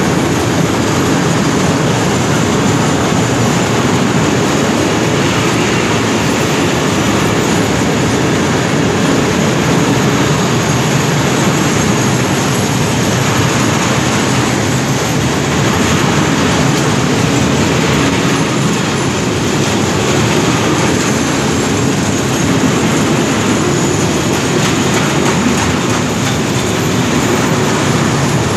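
Long freight train of covered wagons rolling past at speed: a loud, steady rumble and rattle of wheels on the rails.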